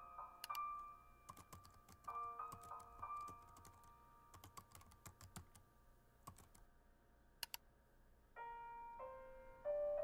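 Laptop keyboard typing: a run of quick, light keystrokes from about one to five seconds in, with a few single clicks either side. Underneath is soft background music of held notes that grows louder near the end.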